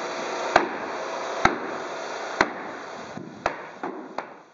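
Hammer blows on a plywood subfloor, one about every second, sharp and ringing, over a steady hiss. The blows grow fainter near the end as the sound fades out.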